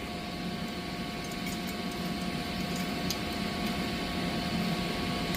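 Steady hum and hiss of boiler-room machinery with two faint steady tones, growing slightly louder, and a few light ticks.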